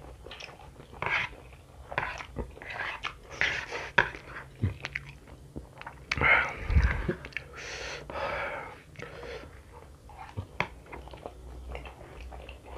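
A person slurping and chewing spicy fried instant noodles close to a headset microphone, in irregular wet bursts with small clicks. The longest, loudest stretch comes about six seconds in.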